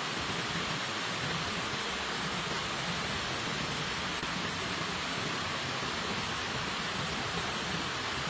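Steady rain, an even unbroken hiss with no separate drops or thunder standing out.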